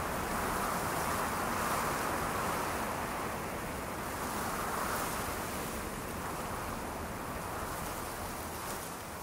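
A soft, even rushing noise, like surf or wind, that swells and ebbs gently and slowly eases off toward the end.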